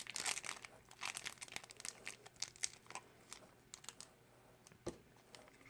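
Small toy packaging crinkling and tearing as it is handled and opened, in scattered crackles that thin out after about three seconds, with one soft knock near the end.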